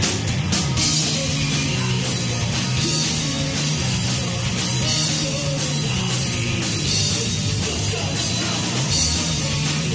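Live rock power trio playing at full volume: distorted electric guitar, electric bass and a drum kit with crashing cymbals, with the bassist singing lead.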